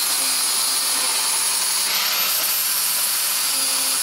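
Angle grinder grinding down stitch welds on a sheet-steel wheel arch patch, a steady hiss of the disc on metal under a high motor whine. About two seconds in the whine jumps up in pitch as the grinder is eased off the metal, then slowly sinks again as it is pressed back into the weld.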